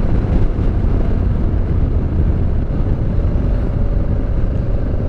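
Honda Transalp motorcycle cruising at a steady road speed: a steady engine rumble mixed with wind rushing over the rider-mounted microphone. A faint steady tone joins in about halfway through.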